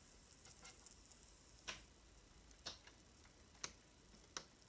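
Faint, scattered clicks and taps, about four in all, from hands tying cords around a wooden chair back, over near-silent room tone.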